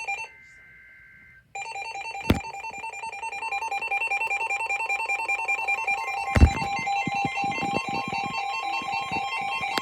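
Electronic emergency alert tones from several devices going off together, announcing a new severe thunderstorm warning. A brief steady tone comes first, then about a second and a half in a rapidly pulsing, beeping multi-tone alarm starts and keeps sounding. Two sharp knocks cut across it, the louder one about six seconds in.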